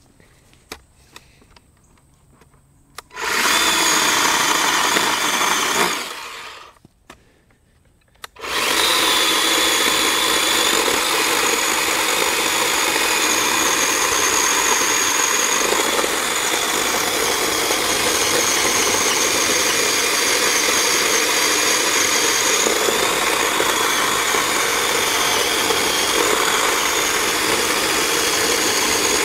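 Greenworks 40V 12-inch battery chainsaw's electric motor whining as it cuts through a thick log. It starts about three seconds in, winds down and stops for a moment, then runs on steadily in the cut. It struggles a little, which the owner puts down to the saw being underpowered for this size of log.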